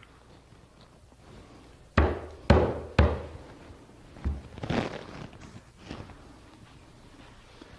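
Wooden top rail being knocked down onto glued mortise-and-tenon joints: three sharp thuds about half a second apart, then a lighter knock and a short scrape of wood on wood.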